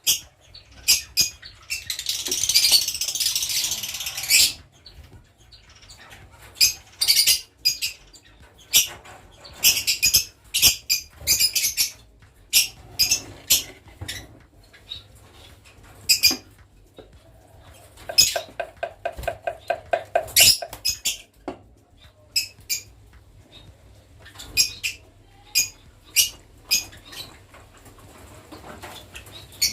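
Lovebirds calling: many short, shrill chirps in quick runs, with a denser burst of squawking about two seconds in and a rapid rattling call around the middle.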